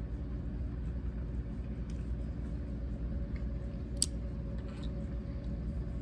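House furnace running with a steady low hum. There is a sharp click about four seconds in as a hand picks a diecast toy car off its display turntable.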